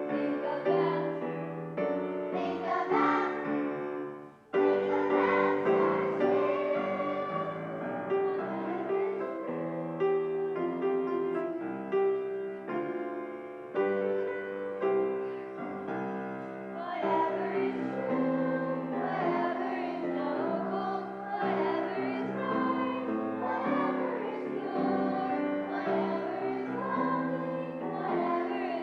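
Song with a group of voices singing over piano accompaniment, with a brief pause about four seconds in.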